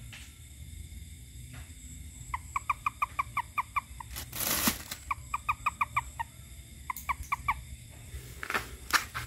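Frog calling: three quick runs of short, evenly spaced notes, about eight a second, each run lasting about a second. Two short rushes of noise fall between the runs, the first just after the first run and the second near the end.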